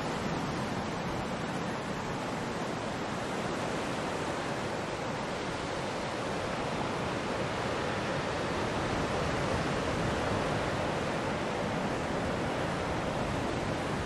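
Ocean surf breaking in a steady, unbroken rush of waves.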